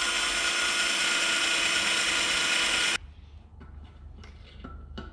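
Cordless drill running steadily at speed, its bit boring a hole through a metal motor mount plate. The motor cuts off suddenly about three seconds in, leaving a few light clicks.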